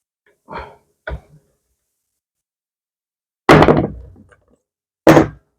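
Hand planer parts and a spanner knocking on a workbench while the planer's blades are being removed. Two light knocks come near the start, then two loud clunks about a second and a half apart; the first clunk rattles on briefly.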